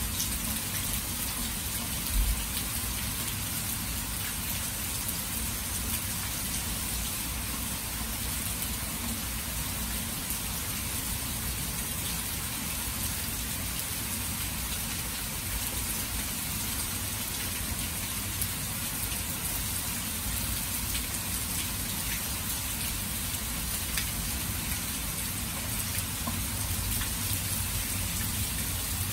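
Steady rain falling, an even hiss with scattered taps of single drops. A brief low thump about two seconds in.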